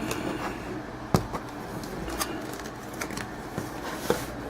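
Trading cards and their packaging being handled, with a few sharp clicks and taps, the loudest about a second in, over a steady low hum.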